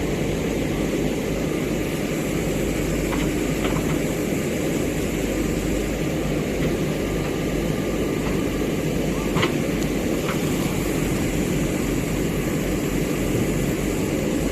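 Backhoe loader's diesel engine running steadily, with a few faint knocks.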